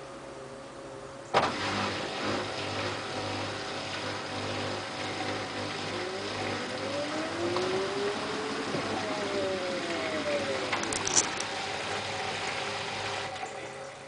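LG F1222TD direct-drive washing machine during its rinse cycle: a clunk about a second in, then a steady low hum with water noise. Midway, a motor whine rises and then falls in pitch. It all cuts off abruptly near the end.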